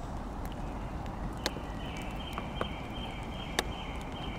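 Steady rain hiss with scattered drops tapping on the wooden playground tunnel, three louder drips falling about a second apart.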